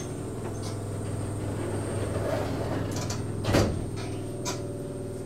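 Shizuoka Railway 1000 series electric train heard from on board, a steady hum with one sharp clunk about three and a half seconds in and a fainter click just after.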